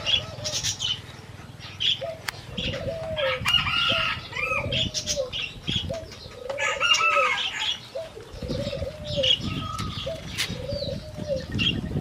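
A dove cooing over and over, a steady run of short coos about one a second starting a couple of seconds in, with other birds calling and chirping around it.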